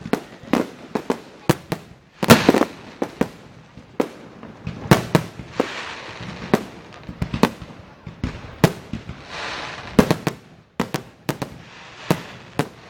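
Fireworks display: a fast, irregular series of sharp bangs, loudest about two seconds in.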